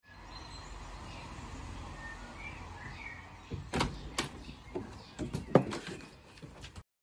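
Quiet garden ambience with faint bird chirps, then from about halfway a run of sharp clicks and knocks as a glazed door is handled and opened.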